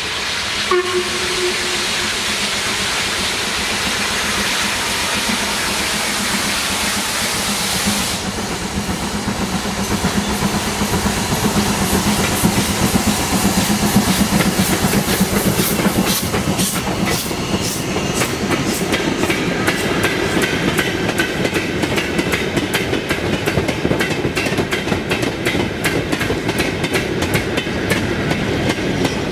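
Steam-hauled train: a steady hiss of steam with a short whistle note about a second in. The hiss stops about eight seconds in, and the wheels then click rhythmically over the rail joints as the train rolls past.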